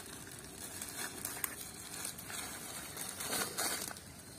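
Irregular rustling and crackling, louder for a moment about three seconds in.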